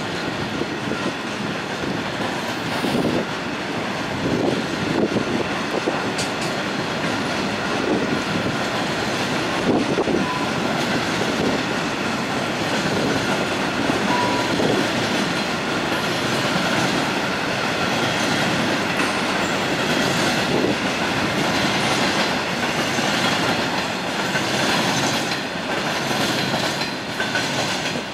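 EWS freight train's wagons rolling past at a steady speed, a continuous sound of steel wheels running on the rails.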